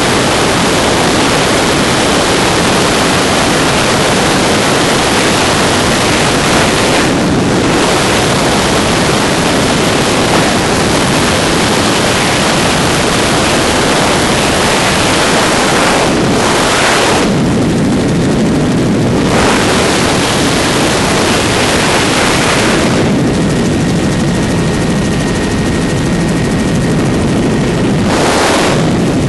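Helicopter in flight heard from inside: a loud, steady rush of engine, rotor and wind noise. The high hiss fades for a few seconds several times, leaving the lower rumble.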